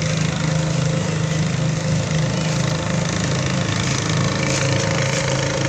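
A small engine running steadily, a constant hum that neither rises nor falls.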